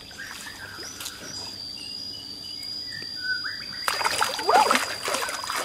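Hands splashing and sloshing in shallow muddy water while groping for fish, starting suddenly about four seconds in. Before that it is quieter, with a steady high insect tone behind.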